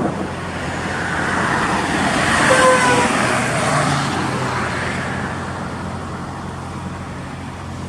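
A road vehicle driving past: its noise swells to a peak between two and three seconds in and slowly fades, with a brief falling whine at the loudest point.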